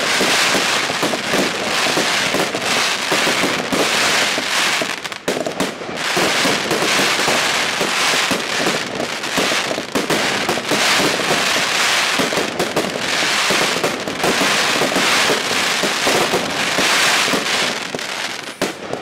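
Crackling Meteors firework going off: dense, continuous, very loud crackling with no other effect, with a short lull about five seconds in.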